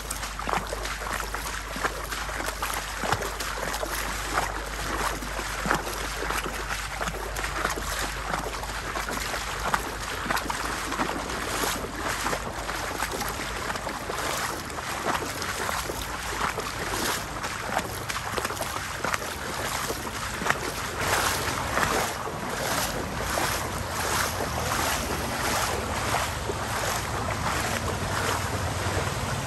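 Floodwater sloshing and splashing with each step as someone wades along a flooded street. A low engine hum builds in the last third, from a motorbike riding through the water.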